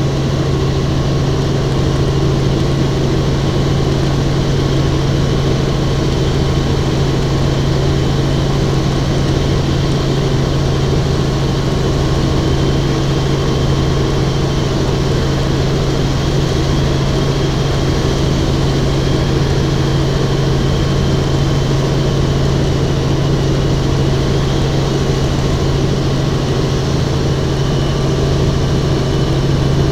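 Helicopter in flight heard from inside the cabin: a steady, unbroken drone with a strong low hum and a faint high whine above it.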